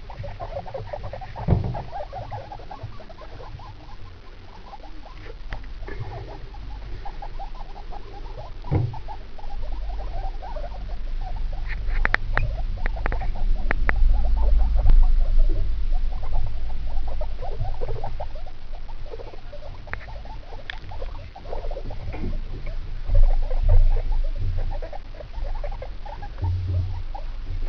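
Guinea pigs, a sow with four babies and a boar, making rapid soft chattering calls in runs while they move about in hay and wood shavings. A low rumble of the handheld camera sits underneath and is loudest about halfway through.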